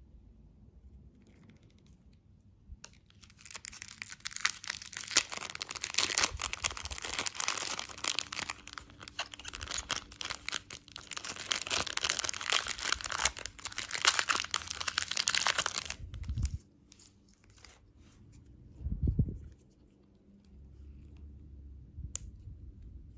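Candy packaging being torn open and crinkled: dense crackling with many small clicks for about twelve seconds, stopping suddenly, followed a few seconds later by a single low thump.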